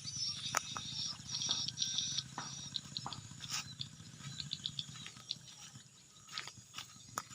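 Swiftlets chirping and clicking, many short high calls in quick clusters, over a low steady hum.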